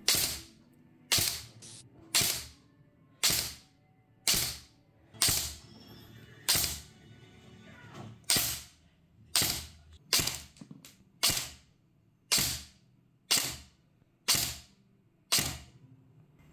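Delta Armory MK18 Freya airsoft electric rifle firing single shots through a chronograph to measure muzzle velocity, about one shot a second. There is one longer pause a little before the middle and a few quicker shots around ten seconds in.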